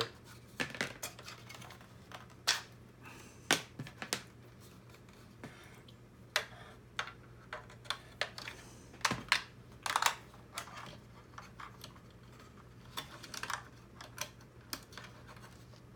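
Irregular light clicks and taps of hard plastic robot-kit parts and a cable connector being handled and worked loose.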